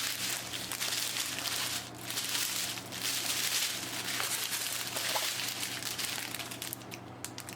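Small plastic bags of diamond painting drills crinkling continuously as they are handled, with the steady low hum of a room fan underneath.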